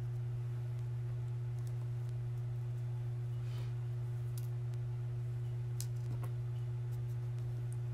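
A steady low hum, one constant tone, runs through. A few faint soft ticks come in the middle, from sequins being picked from a pile and set onto paper.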